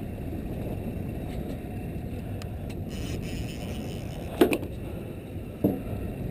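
Steady low rumble of a small fishing boat on open water, broken by two short sharp sounds about four and a half and five and a half seconds in.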